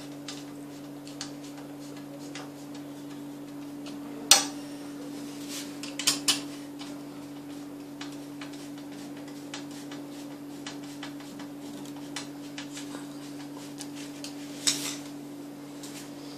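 Screwdriver driving a screw into a steel cradle-frame tube: light metal ticks and clicks, with a few louder metal knocks, over a steady low hum.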